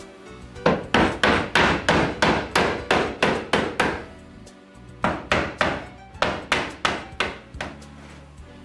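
A white-headed mallet knocks on the corner of a wooden drawer box, driving the joint together: a run of about a dozen quick blows at about four a second, a short pause, then about nine more. Soft background music runs underneath.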